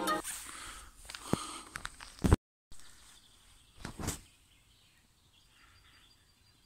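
Outdoor ambience with a few short knocks and rustles and a brief dropout about two and a half seconds in, then a quiet stretch with faint high chirping like a distant bird.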